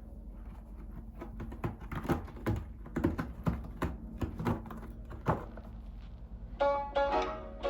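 A pet's claws scratching in a run of short, irregular strokes, about two to three a second, stopping after about five seconds; music comes in near the end.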